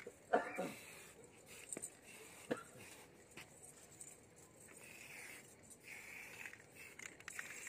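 A goat bleats once, briefly, falling in pitch, just after the start. Faint scattered knocks and rustling follow.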